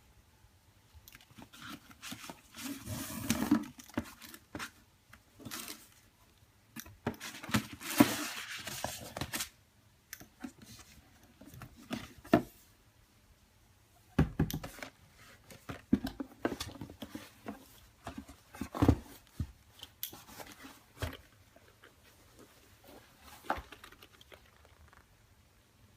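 Paper and packaging being handled and opened: intermittent rustling, crinkling and tearing in short bursts, with scattered knocks.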